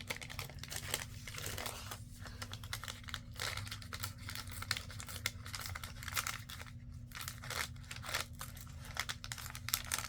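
Coffee-dyed parchment paper being torn by hand along its edge: a run of short, irregular ripping and crinkling sounds, over a faint steady low hum.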